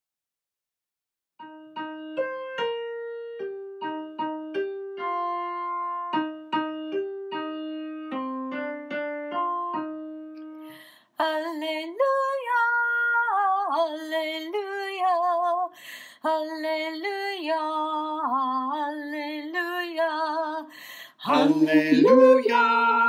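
Piano plays a short hymn introduction in single, decaying notes, starting after a brief silence. About eleven seconds in, a held melody line with vibrato comes in over it. Near the end the music turns fuller and louder as the sung hallelujah response gets under way.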